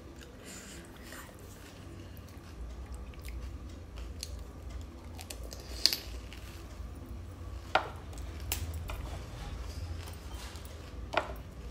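Close eating sounds of pani puri: crisp puris crunching and being chewed, with a few sharp cracks, three of them louder, as the hollow shells are bitten or broken open. A steady low hum sits underneath.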